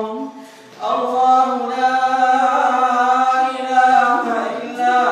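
A man reciting prayer aloud in a slow, melodic Quranic chant. After a short breath pause near the start, he holds one long, drawn-out phrase, and a new phrase begins near the end.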